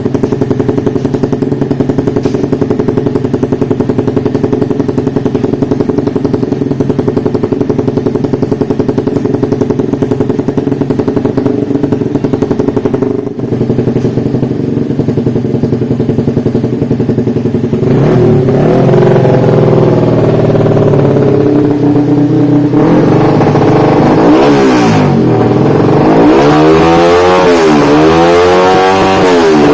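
Race-tuned Yamaha MX King's single-cylinder four-stroke engine idling steadily, then from about two-thirds of the way in revved hard several times, rising and falling in quick blips.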